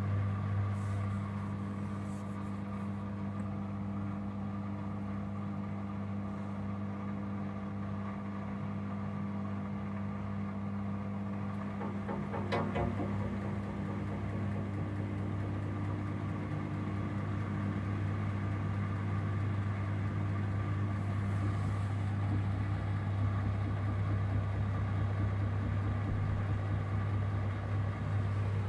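Miele WDB030 front-loading washing machine running with a steady low hum, and a short burst of rattling about halfway through. This is the rattle the owner cannot explain in the 11-month-old machine.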